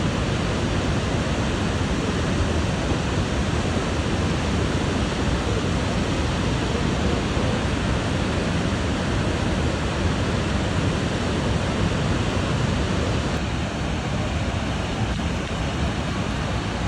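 Steady rushing of a wide, cascading waterfall: a dense, even wash of falling water with no breaks.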